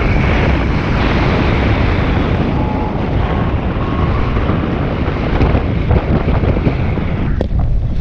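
Strong wind rushing over the microphone of a paraglider pilot in flight, a loud, steady noise that drops away near the end, where a couple of knocks come as he lands on the grass.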